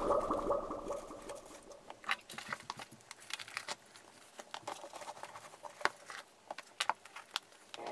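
Scattered soft rustles and light clicks of small items being handled and pushed into a tote bag, including a cloth drawstring pouch. Background music fades out in the first second or so.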